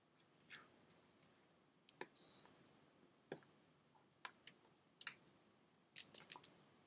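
Near silence broken by scattered faint clicks and taps from a person's hand and mouth movements, with a quick cluster of four clicks about six seconds in and a brief faint high squeak a little after two seconds.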